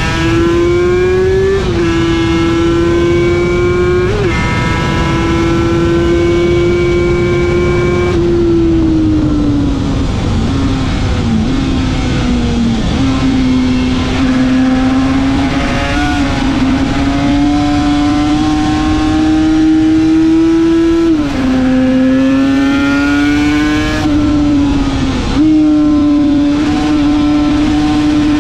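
Two-stroke Yamaha YZR500 replica race bike's engine running hard at high revs, heard from on board. The pitch holds steady for long stretches and jumps abruptly a few times as gears change. About a third of the way in it slowly falls as the bike slows for a corner.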